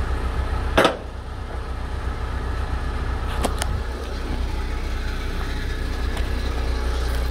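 Steady low rumble of an idling vehicle engine. A single sharp knock comes about a second in, and two quick clicks follow about three and a half seconds in.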